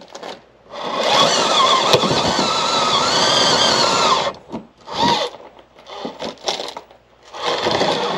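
Axial SCX24 mini RC crawler's small electric motor and geared drivetrain whining under throttle as it climbs. The whine wavers in pitch as the load changes. It comes in bursts: a long one of about three and a half seconds, a few short blips, then another long one starting near the end.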